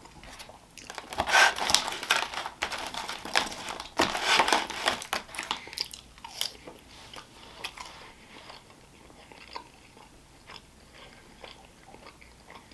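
Close-miked chewing of a mouthful of sweet potato fries topped with maple syrup and whole pecans, with wet crunching that is loudest in the first half and then settles into quieter, sparser chewing.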